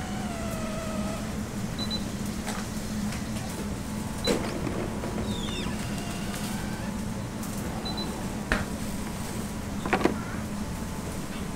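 Automatic rice-dispensing machine running with a steady motor hum as it portions cooked rice into a paper box. There are a few short high beeps and several sharp knocks as the boxes are handled, the loudest about 10 s in.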